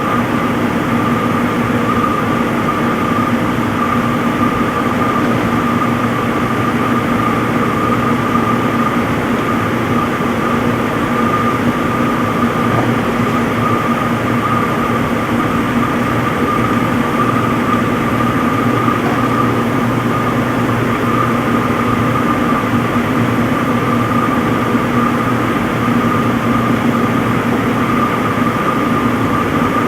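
Front-load washing machine in its spin cycle, the drum spinning at a steady speed: a constant high whine over a lower hum and a rushing noise, with no change in pitch.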